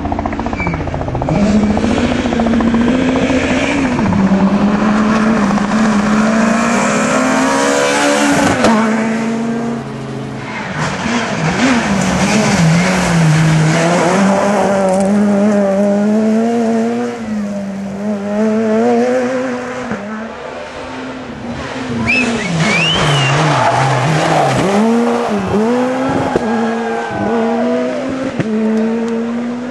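Super 2000 rally cars' 2.0-litre naturally aspirated four-cylinder engines revving hard at speed, one car after another. Engine pitch climbs and drops sharply again and again through gear changes and lifts off the throttle.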